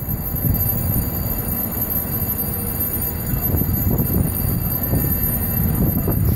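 A fire engine's diesel engine running at idle, a steady low rumble, mixed with street traffic noise.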